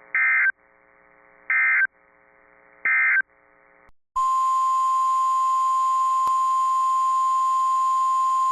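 Weather radio emergency alert signalling: three short, buzzy EAS SAME digital data bursts about a second and a half apart, each the brief length of an end-of-message code. About four seconds in, the steady single-pitched 1050 Hz warning alarm tone starts over radio hiss, the tone that announces a new warning.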